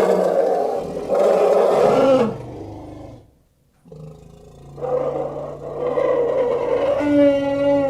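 Sound effect of a Columbian mammoth, an extinct animal, so a made-up reconstruction: a long, low call that dies away about two and a half seconds in, then after a short gap a second long call that ends in a clearer, higher note.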